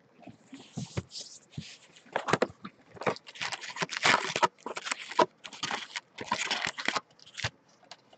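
Cellophane shrink-wrap being torn and crinkled off a sealed hobby box of baseball cards, in irregular crackling bursts that are busiest around the middle.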